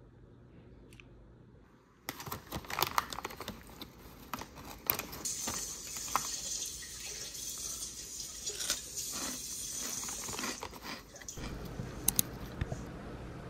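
Plastic snack bag crinkling and rustling as it is handled, starting abruptly about two seconds in, with many sharp crackles. It eases near the end, where a few sharp clicks are heard.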